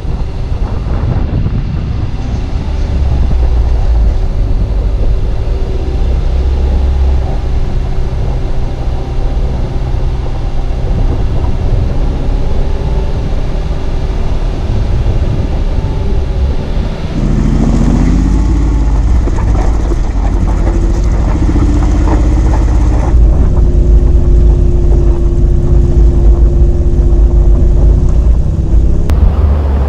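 Mercedes-Benz G-Class engine running at low speed over off-road terrain, heard through a camera mounted on the body with heavy wind rumble on the microphone. About halfway through the engine note shifts, with a short rise and fall in pitch, and it runs a little louder after that.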